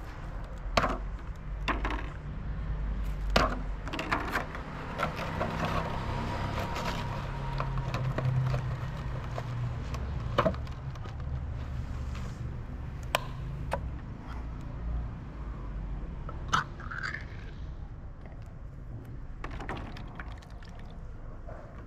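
A plastic food container and a tin can being handled: scattered sharp clicks and taps with some scraping, over a low steady rumble.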